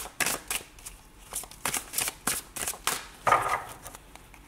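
A tarot deck being shuffled by hand: a string of quick, irregular card slaps and rustles as the cards drop onto one another, with a louder swish about three seconds in.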